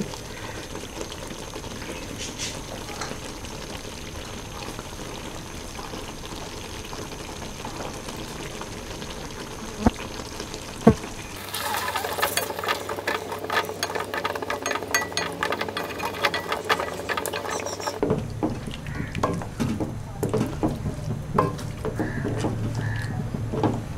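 Cream poured from a carton into a steel karahi of chicken gravy, then a wooden spoon stirring it in, scraping and knocking rapidly against the pan from about halfway through, with scattered knocks near the end.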